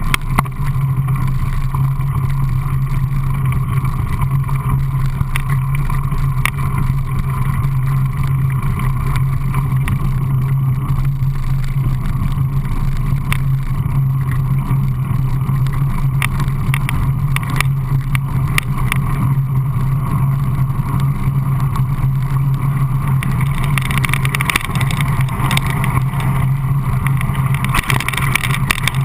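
Mountain bike rolling fast down a gravel trail: a steady low rumble of tyres on gravel with frequent clicks and rattles from the bike over loose stones. The noise turns brighter and hissier in the last few seconds as the bike picks up speed.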